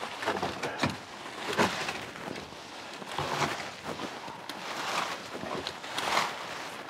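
Dry fallen leaves rustling and crunching in irregular swishes, about one a second, as they are gathered up out of a footer form.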